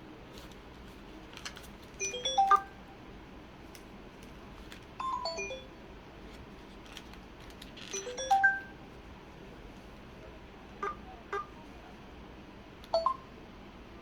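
LG Wine Smart Jazz (LG-F610) flip phone's speaker playing short electronic sound effects: three quick multi-note beep jingles about three seconds apart, then a few single beeps, with faint clicks between.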